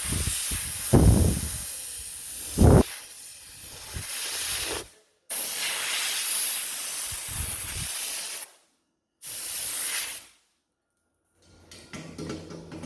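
Compressed air hissing from a blow gun in three bursts, the first two long and the last short, each cutting off suddenly: cooling the fresh welds on the trunk lid so the big panel doesn't warp. Two short low thuds come in the first few seconds.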